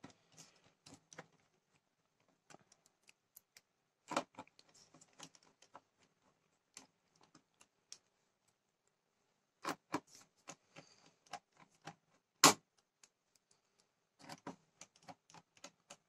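Faint, irregular clicking and ticking of a magnetic screwdriver tightening the screws of a laptop's bottom cover, with screws and the bit tapping on the case. A few sharper taps come through, the loudest about three-quarters of the way in.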